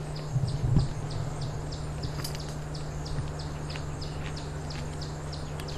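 A steady run of short high chirps, about three a second, over a constant low hum, with a few low thumps in the first second.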